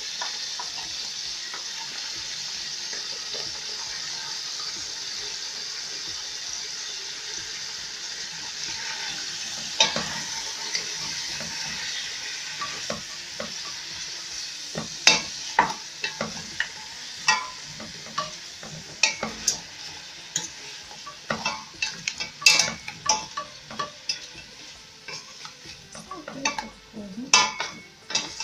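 Sheep's trotters, chopped onion and spices sizzling in oil in a steel pressure-cooker pot, a steady sizzle at first. From about halfway, a utensil scrapes and knocks irregularly against the pot as the mixture is stirred, and the sizzle dies down.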